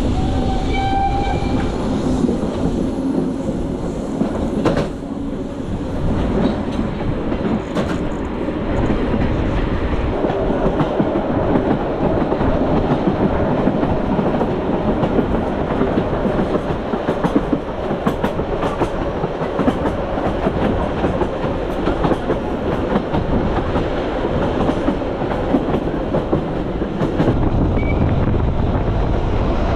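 Metre-gauge train running along the track, a steady rumble with the wheels clicking over the rail joints. A brief high tone sounds about a second in.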